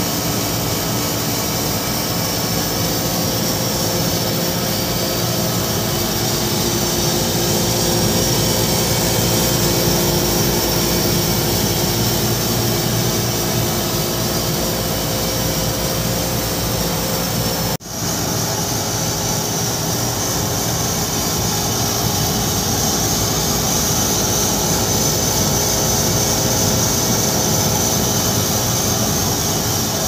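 Refrigeration condensing unit running during an R-404A refrigerant charge: a steady rushing noise over a low, even hum. The sound cuts out for an instant about two-thirds of the way through.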